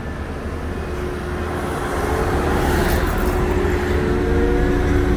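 A heavy vehicle's engine running with a low rumble. One tone rises slowly in pitch, and the sound grows louder about two seconds in.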